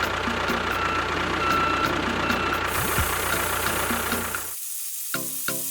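Small motor of a DIY miniature construction machine running with a steady gritty rattle and low hum, cutting off abruptly about four and a half seconds in. Short plucked music notes follow.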